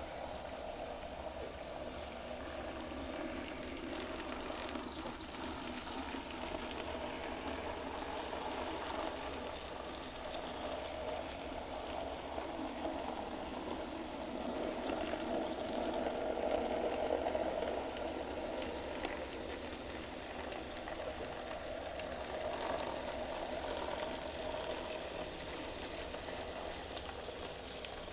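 Tiny battery-powered Nn3 model train running on handlaid code 40 track: a steady whirr of the small motors and wheels on the rails, growing louder about halfway through as the train passes close by.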